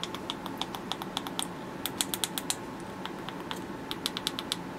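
Small metal-disc push buttons on a radio clock kit's display board, held in place with scotch tape, pressed over and over by thumb in a quick run of sharp little clicks, bunched about two seconds in and again near the end. The presses are a test of whether the buttons work.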